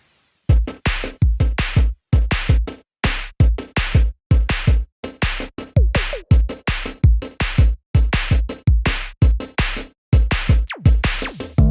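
Electronic background music with a punchy drum-machine beat and deep kick drums, coming in about half a second in after a brief gap.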